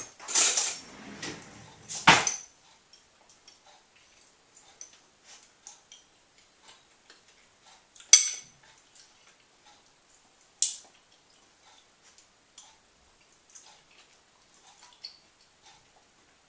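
Spoon scraping and clinking against a porridge bowl while eating. The scraping is loudest in the first two seconds, followed by scattered light taps and two sharp ringing clinks.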